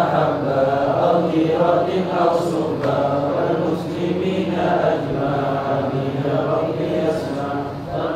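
A man's voice chanting an Arabic du'a (supplication) in a slow recitation, holding long notes.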